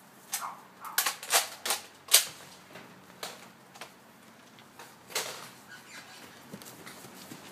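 A run of sharp knocks or clacks, about six in quick succession within the first two seconds, then one more about five seconds in.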